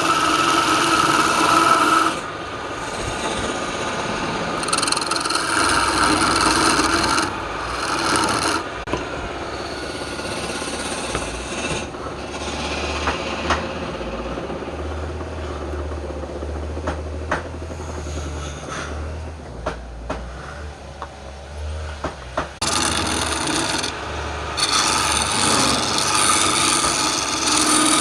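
A turning tool scraping and cutting a spinning piece of wood on a lathe, in spells that come and go, with a few sharp clicks in the quieter middle stretch.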